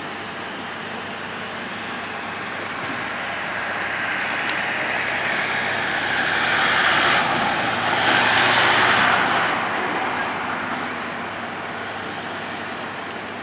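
A road vehicle passing close by: engine and tyre noise builds up, is loudest about seven to nine seconds in, then fades away over a steady background of traffic noise.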